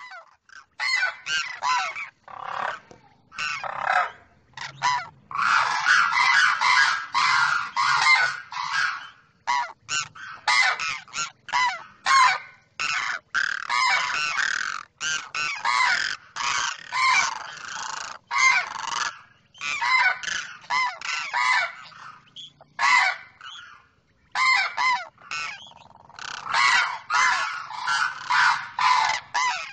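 A pair of demoiselle cranes calling back and forth: loud, honking calls repeated in rapid runs, with a few short gaps.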